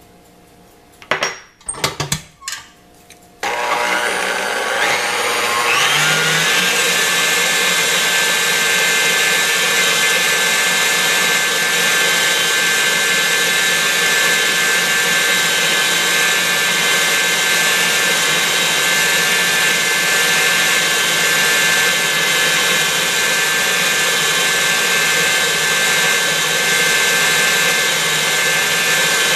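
KitchenAid Heavy Duty stand mixer with a wire whisk whipping egg whites: a few clicks and knocks, then the motor starts about three seconds in and its whine rises over about three seconds to top speed. It then runs steadily at high speed.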